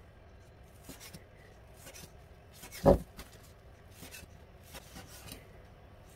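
Chef's knife cutting a spongy steamed soy-and-gluten loaf into strips on a wooden cutting board: soft rubbing slices and light knocks of the blade on the board. One much louder thump comes about three seconds in.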